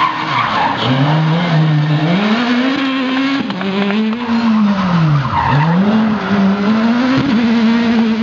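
Škoda Fabia S2000 rally car's four-cylinder engine driven hard through a corner, its pitch climbing and dropping with several gear changes and a deep lift about halfway through. Under it, tyres scrabble on loose gravel.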